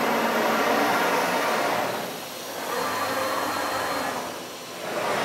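ShopSabre IS408 CNC router running its rigidity 'nickel test': the spindle head and gantry traversing rapidly at speed, a loud steady rushing machine noise that dips briefly twice.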